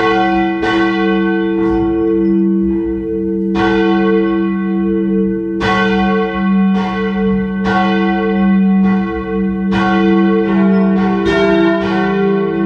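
Church bells ringing: several bells struck one after another, roughly a stroke a second, each stroke leaving a long ringing hum that overlaps the next.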